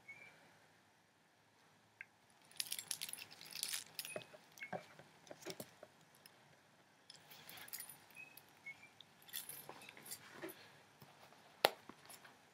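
Metal chain and clips on a mount jangling and clinking as it is handled, in several bouts of rattling, with one sharp click near the end.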